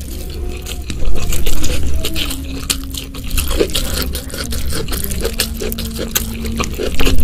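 Close-miked wet chewing and lip-smacking of a hand-fed mouthful of rice in spicy sauce, a dense run of quick moist clicks and squelches. Fingers squishing into the saucy food near the end.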